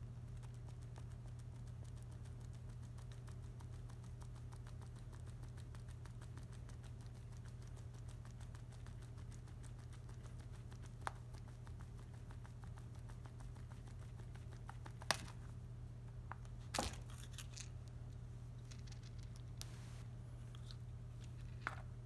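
Southord tubular lock pick being worked in a tubular pin-tumbler lock: faint, fine metallic ticking as the pick's feelers set the pins, with a few sharper clicks in the second half, over a steady low hum.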